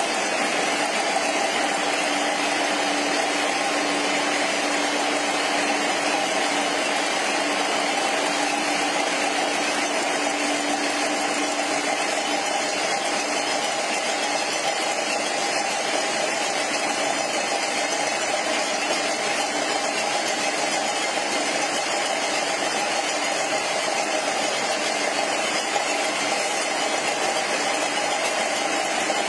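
Aerosol tin can vacuum leak tester running steadily, a continuous machine noise with a steady whine, and a lower hum that fades out about halfway through.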